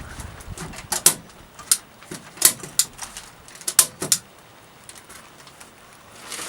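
A series of sharp, irregular clicks and knocks, about six in the first four seconds, some with a short squeak that falls in pitch, then quieter.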